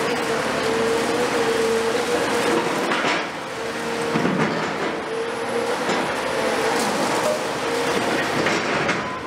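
Cat 336F long-front demolition excavator working, its Cat C9.3 diesel and hydraulics running steadily with a constant whine, while its demolition jaw crunches reinforced concrete. There are sharper cracks of breaking concrete about three seconds and four and a half seconds in.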